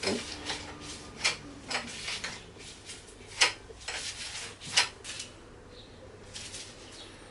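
Scattered clicks and light knocks of small parts being handled, with some rubbing between them; three sharper clicks stand out, about a second, three and a half seconds and nearly five seconds in.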